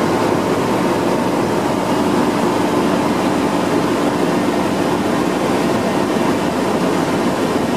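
Car ferry's engines running steadily under way, a constant drone with a steady hum, heard on the open deck near the funnel.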